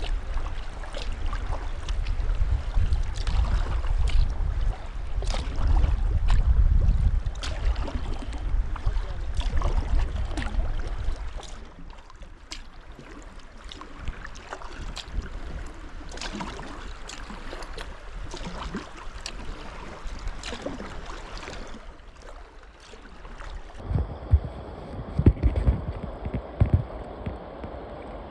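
Kayak paddle strokes splashing and dripping water, with wind buffeting the microphone as a low rumble for roughly the first ten seconds, then easing off.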